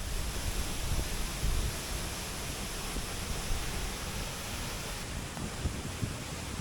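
Steady rushing roar of a tall waterfall, with wind gusting on the microphone low down.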